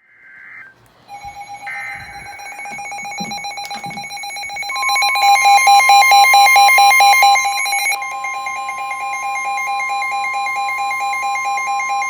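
NOAA Weather Radio alert start. Two short buzzy SAME data bursts come first, then a rapidly pulsing electronic alarm beeps. About five seconds in, the steady 1050 Hz warning alarm tone joins it, signalling that a warning is about to be read.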